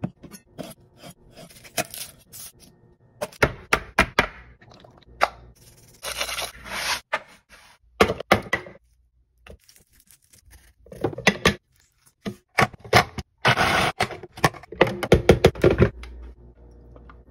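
Food-prep handling sounds: a knife chopping and scraping on a wooden cutting board, with irregular knocks, thunks and scrapes as chopped tomato is slid off the board into a plastic food processor bowl.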